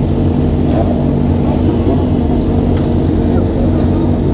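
Sport motorcycle engines idling steadily at a standstill, the nearest engine's even idle loudest, with no revving.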